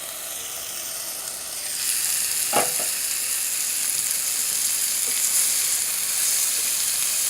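Marinated chicken pieces sizzling as they fry in butter in a small pan on a gas flame. The sizzle gets louder about two seconds in, and there is a single short knock soon after.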